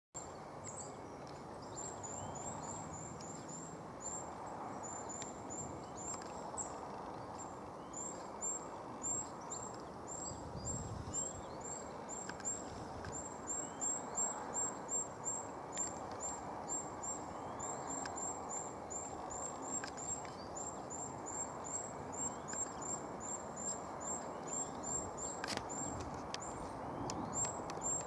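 River water running steadily, with a short high-pitched chirp repeated several times a second throughout, louder in the second half, and a few faint rising calls now and then.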